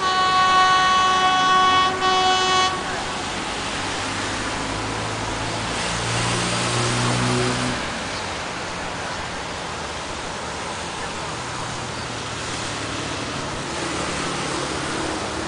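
GE UM-12C diesel-electric locomotive's horn sounds a long blast and then a short one. After that the locomotive's diesel engine drones low, swelling for a few seconds before settling into a steady rumble as the train approaches.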